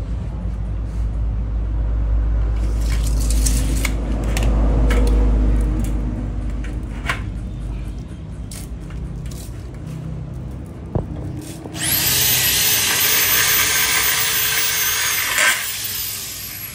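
Clicks and knocks of aluminium profiles being handled over a low rumble, then about twelve seconds in a cordless drill runs for about four seconds, drilling through an aluminium profile with a wavering whine, and stops abruptly.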